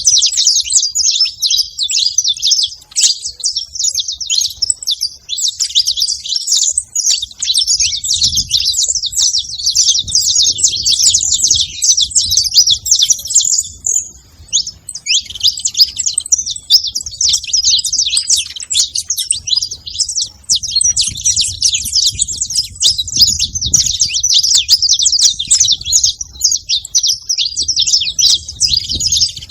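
Saffron finch singing a long, rapid run of high chirps and trills, with a short break about fourteen seconds in.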